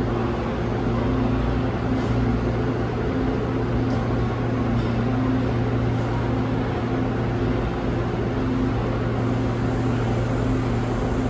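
Electric subway train standing at the platform, its onboard equipment humming steadily with a few low tones.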